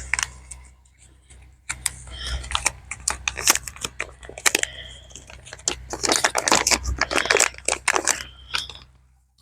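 Plastic packaging crinkling and rustling in irregular bursts of crackles as dash cam parts are handled and unwrapped.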